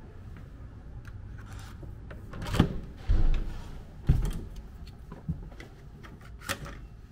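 Knocks, clicks and rubbing from a hotel door being opened and handled. A few loud knocks and thumps come about two and a half to four seconds in, followed by lighter clicks.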